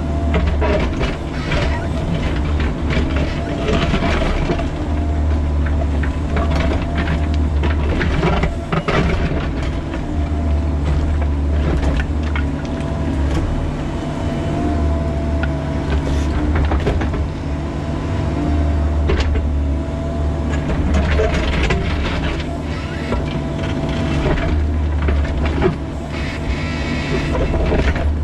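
Bobcat E45 mini excavator's diesel engine running under load, heard from the cab, a steady low drone with a higher whine that wavers as the arm and bucket work. Scattered clunks and scrapes of the bucket digging in rock.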